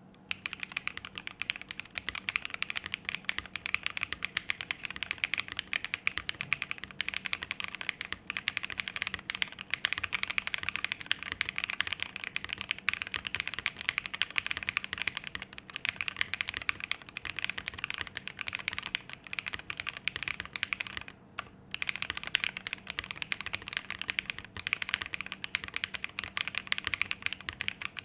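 Fast, steady typing on a JRIS65 R2 mechanical keyboard with Green Jacket linear switches, an FR4 plate and PBT keycaps: a dry, loud clack on every keystroke, with a brief pause about three quarters of the way through.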